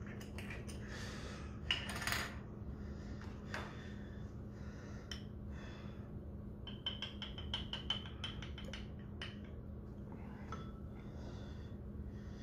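Light handling of a spice jar: the cap clicking open, then a quick run of light taps and ticks as dried thyme is shaken from the jar onto a measuring spoon, over a steady low hum.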